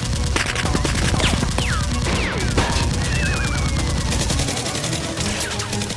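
Rapid gunfire sound effects for a Nerf blaster battle, shot after shot, with several short falling whistles like ricochets in the first few seconds, over a low background music bed.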